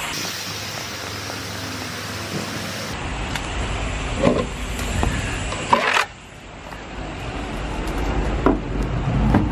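Lorry engine running with a low rumble, under a steady hiss that stops abruptly about three seconds in. Knocks and a sharp clatter about six seconds in, from handling a yellow plastic wheel chock at the trailer wheel.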